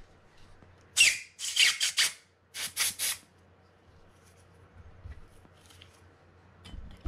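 A small screwdriver scraping corrosion off a small metal part of a spinning reel: a quick run of about seven short scraping strokes starting about a second in, then a few faint light clicks of small parts being handled.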